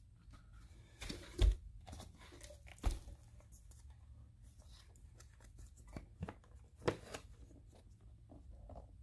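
Scattered knocks and rustling over a faint low hum, the loudest knocks about one and a half and three seconds in; no vacuum motor is running.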